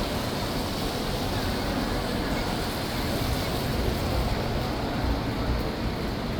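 Steady city-centre street noise: a low rumble under an even hiss, with no single sound standing out.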